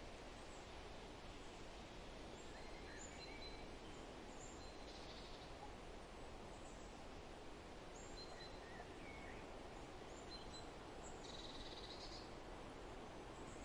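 Forest ambience: a faint, steady hiss with scattered short bird chirps and calls throughout, and a brief buzzy bird trill twice, about five seconds in and again near the end.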